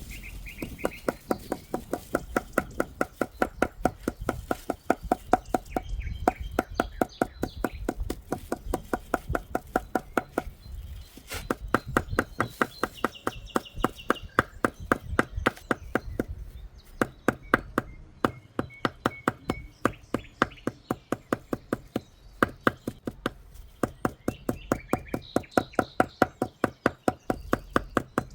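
Rapid, even knocking, about four to five sharp strikes a second, in runs broken by short pauses.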